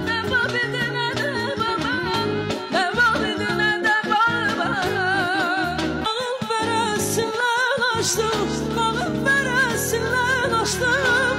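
Woman singing live into a handheld microphone, a wordless, ornamented vocal line with quick wavering trills, over instrumental accompaniment with long held low notes.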